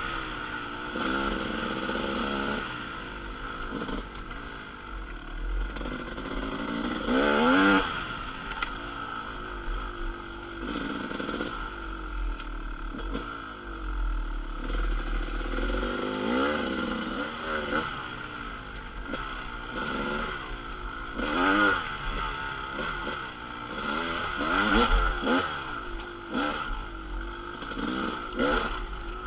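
Dirt bike engine revving up and down again and again as the bike is ridden over a rough dirt trail, heard from on board, with scattered knocks and rattles from the bumps.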